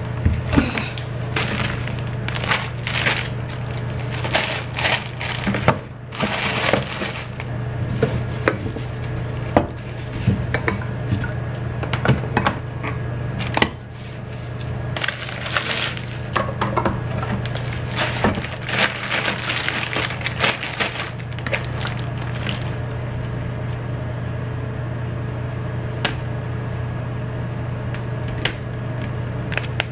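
Tin cans, bottles and crinkly plastic food packets being handled and set into plastic storage bins: rustling and irregular light knocks and clinks over a steady low hum. The knocks thin out over the last several seconds.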